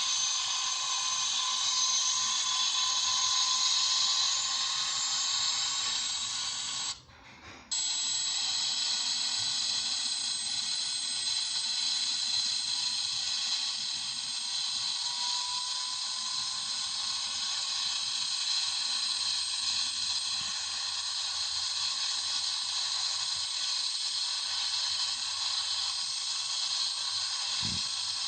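Helicopter sound effect heard as a steady high-pitched whine and hiss, with no low rotor beat. It drops out briefly about seven seconds in, then carries on.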